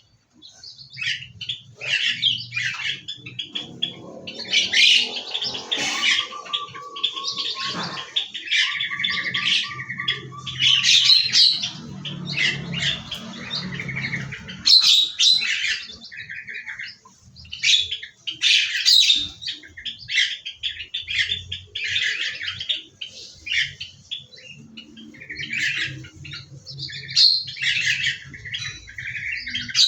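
A flock of small aviary birds chirping and squawking, many short calls overlapping without a break, with a rapid trill in the middle.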